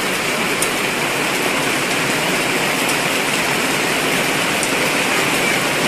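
Steady heavy rain falling, a dense even hiss, with a few faint sharp ticks of drops landing close by.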